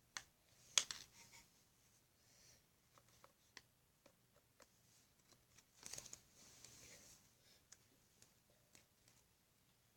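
Quiet handling noises from slime-making supplies being put away: a sharp click about a second in, scattered light taps, and a short rustle around six seconds in.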